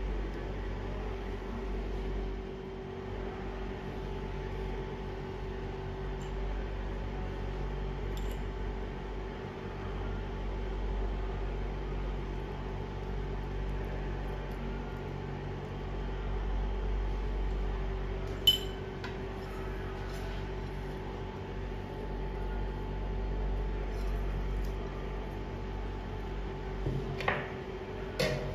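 Steady electrical hum of an induction cooktop running under a pan, with its cooling fan whirring. A few sharp clicks of utensils on the pan come through, one about two-thirds of the way through and a short cluster near the end.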